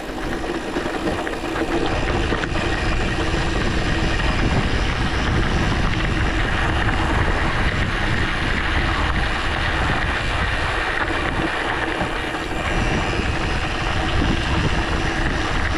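Wind buffeting the camera microphone and mountain-bike tyres rolling over a rough dirt trail on a descent, a steady rushing rumble that swells about a second and a half in.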